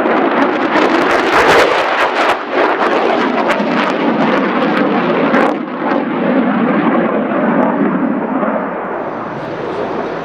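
Lockheed Martin F-35A Lightning II's single Pratt & Whitney F135 jet engine passing loud in a display, its noise crackling sharply through the first six seconds, then settling to a steadier rush that eases a little near the end.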